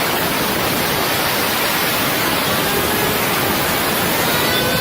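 Loud, steady rush of air from a powerful blower driving a fidget spinner at high speed. A faint rising whine from the spinning spinner shows through the rush in the second half.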